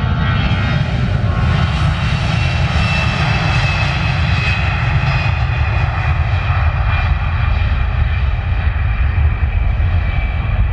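Airbus A320-family airliner's twin jet engines at takeoff power as it starts its takeoff roll: a heavy, steady rumble with a high whine over it, strongest a few seconds in.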